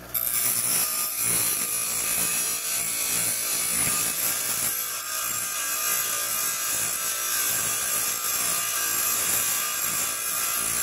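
A metal bar end ground on the wheel of a Craftsman 6-inch bench grinder: a steady, hissing grind that cuts in abruptly right at the start. The sharp, splintered cut end of the bar is being ground down to a cone.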